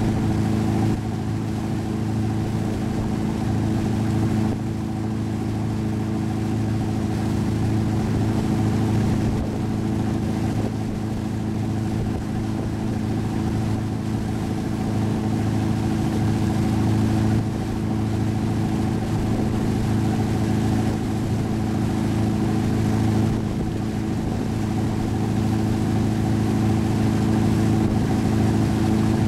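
Motorboat engine running steadily at speed while towing a kneeboarder, a constant drone over the rush of water churned up in its wake.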